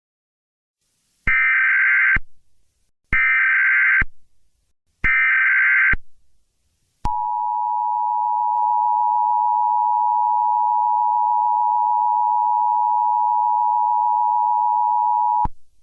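Emergency Alert System header: three short bursts of warbling SAME data tones, each just under a second long, followed by the EAS two-tone attention signal, a steady shrill dual tone held for about eight and a half seconds before cutting off.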